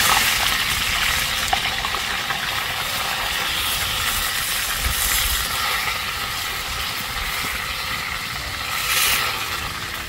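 Hot oil sizzling steadily in a wok as fish fries, a continuous hiss that swells louder at the start and again about nine seconds in.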